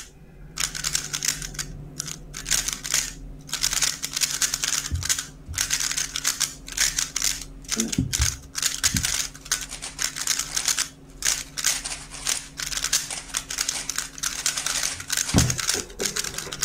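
3x3 speedcubes being turned at full speed: a dense, rapid clatter of plastic layer turns in quick flurries broken by short pauses, over a faint steady electrical hum.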